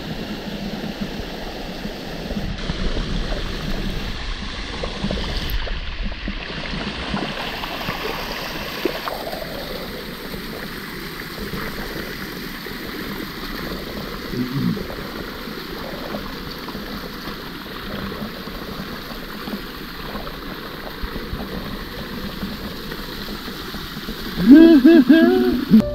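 Water running and splashing over a limestone waterfall cascade, a steady rush. Near the end a person's voice calls out loudly for about a second.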